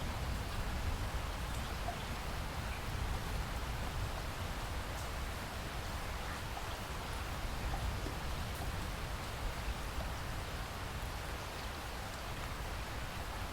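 Steady rain falling, an even hiss with a few faint scattered drop ticks over a low rumble.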